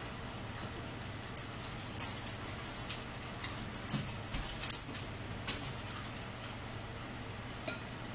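Close-up eating sounds: chewing and mouth noises with light clicks of a fork on a plate. They come in short sharp bursts from about a second and a half in to nearly six seconds, over a steady low hum.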